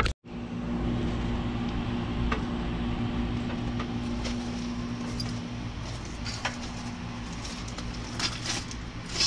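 A steady low motor hum with a few light clicks and taps over it.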